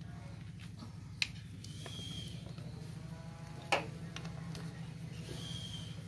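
Two sharp metallic clicks, one about a second in and a louder one near the middle, from a screwdriver working the clamp on a motorcycle carburetor's rubber intake boot, over a steady low hum.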